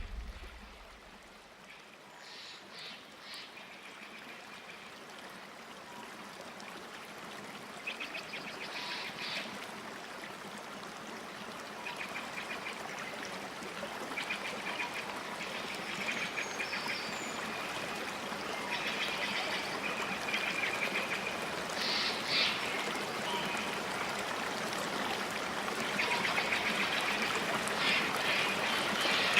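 Water trickling and splashing down the strings of a string waterfall water feature, a steady rush that grows gradually louder, with short higher-pitched splashy patches now and then.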